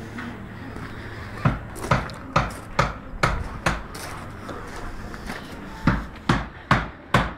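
Repeated sharp knocks, about two a second: a run of six, a pause of about two seconds, then four more near the end, over a steady low hum.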